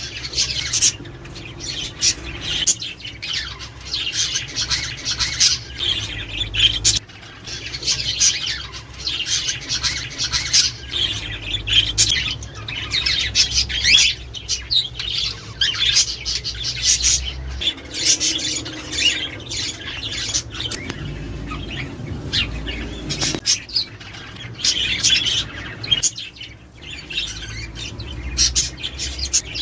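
A flock of budgerigars chattering and warbling, with many short chirps and squawks overlapping throughout and a brief lull near the end.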